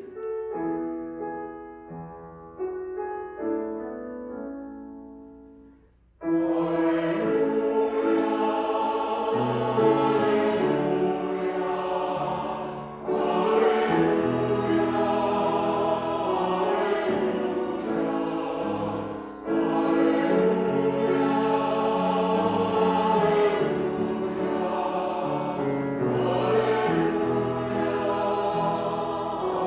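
Church music: the last notes of a hymn's accompaniment ring and fade away, then about six seconds in a choir with accompaniment starts singing abruptly and carries on.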